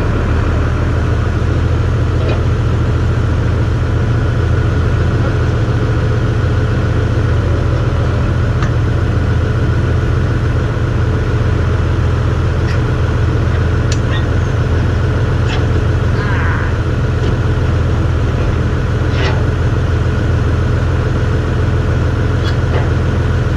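Tractor engine running steadily, a loud, even low drone, with a few light clicks and knocks over it.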